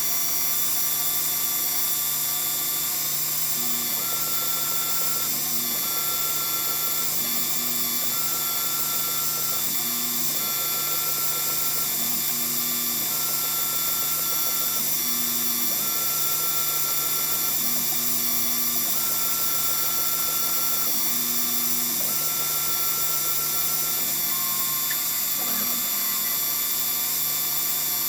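CNC mini mill running: a steady hum and hiss throughout, over which the axis drive motors whine in short moves of about one and a half to two seconds, starting and stopping about eight times.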